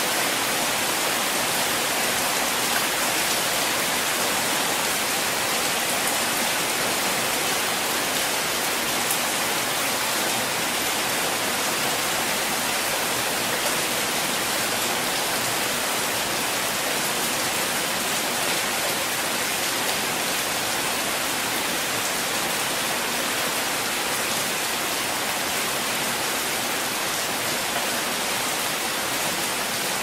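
Steady rain falling, a dense even hiss that holds at one level throughout.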